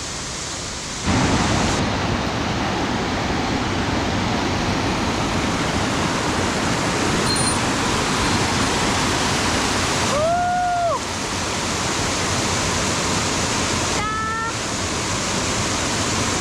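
Waterfall in a mountain stream, a steady loud rush of falling water that steps up sharply about a second in. A short rising-and-falling tone sounds once over it about two-thirds of the way through.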